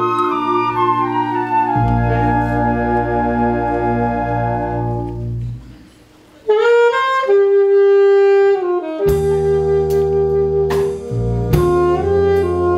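Concert wind band playing a medley of Korean popular songs. Held chords fade out to a brief pause about six seconds in. Then the saxophones take up the melody, and bass and percussion hits join a few seconds later.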